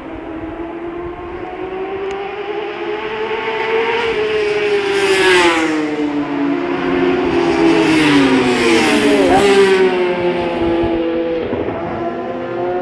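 Racing motorcycles at full throttle on a road racing course, heard approaching and then passing close by at speed. The engine note rises as each bike nears and drops sharply as it goes by, with two loud passes, about five seconds in and again around nine seconds in.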